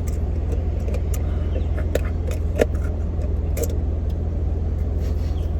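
Car engine idling, heard from inside the cabin as a steady low rumble, with a few scattered small clicks and taps.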